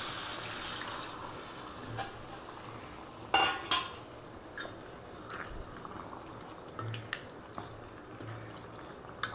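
Water poured into a metal kadai of chicken curry, tailing off about a second in. Around three and a half seconds in, a steel ladle clatters loudly against the pan, followed by a few lighter metal clinks.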